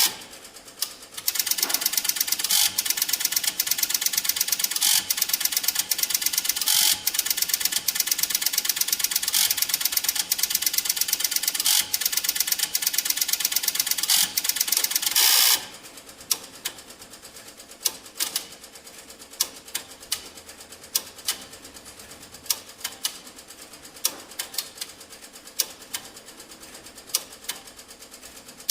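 Teletype machine printing: a fast, continuous mechanical clatter of type strokes with a heavier stroke every couple of seconds, which stops about fifteen seconds in, leaving only scattered single clicks.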